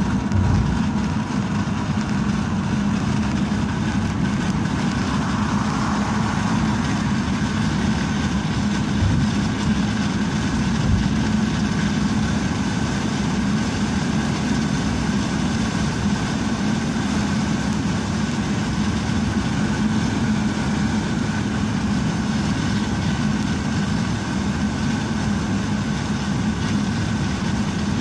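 Steady engine and tyre noise of a car cruising at highway speed, an even low hum that stays level throughout.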